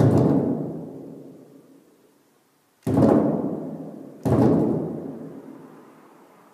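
Baby-shaped sound sculpture giving three sudden, dull drum-like booms, at the start, about three seconds in and a second and a half later, each dying away slowly.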